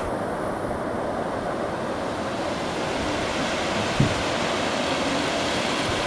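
Steady rush of water spilling over a small rocky waterfall and weir in a river. A brief low thump about four seconds in.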